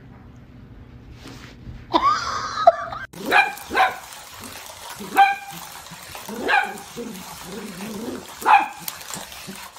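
A small dog yipping: short, high, sharp barks, about five or six spaced out over the last seven seconds. Just before them, about two seconds in, there is a louder, wavering whine that lasts about a second.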